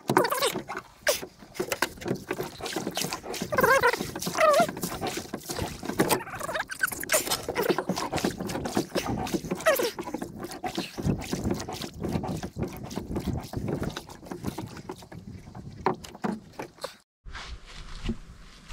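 Wooden oar paddling a small plastic boat: splashing in the water and irregular knocks of the oar against the hull. It cuts off suddenly near the end.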